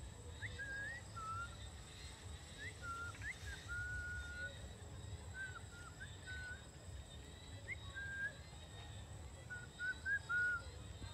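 A bird whistling short clear notes in scattered phrases, each a quick upward slide into a brief held tone, over a low rumble, with a few louder low bumps near the end.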